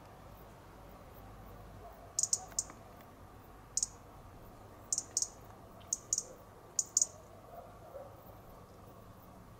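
European robin giving short, sharp, high 'tic' calls, about ten of them, mostly in quick pairs, starting about two seconds in.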